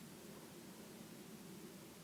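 Near silence: a faint, steady background hiss with a low hum underneath.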